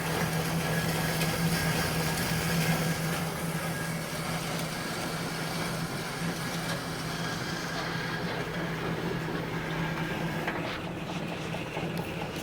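Rebuilt Armstrong-Blum Marvel No. 8 Mark I bandsaw running, its blade cutting through steel under a slow gravity feed: a steady low hum with a rough hiss over it. The hiss fades about two-thirds of the way in while the hum goes on.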